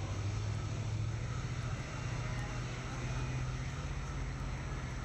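Steady low drone of a ship's engine, a constant hum that does not change in pitch, under an even hiss.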